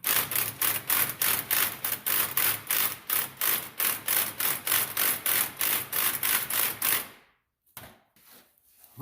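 Impact wrench hammering on a seized, weld-reinforced bolt in even pulses, about four a second, stopping about seven seconds in. The bolt does not break loose.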